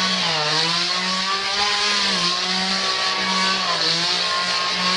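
Chainsaw running steadily while swung on a rope into a hedge. Its pitch dips briefly three times: about a third of a second in, about two seconds in and near four seconds.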